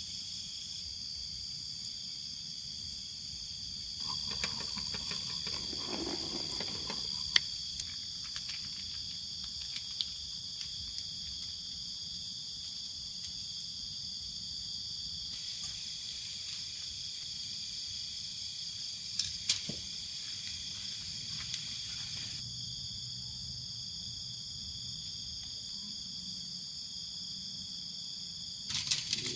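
Steady chorus of night insects, several high, even buzzing tones layered together, whose mix changes abruptly twice. Scattered sharp clicks and light rustles of handling cut in over it, the loudest a single click about seven seconds in.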